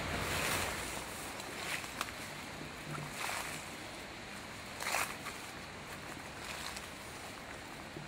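Footsteps pushing through dry undergrowth: a short rustling swish about every second and a half over a steady faint hiss.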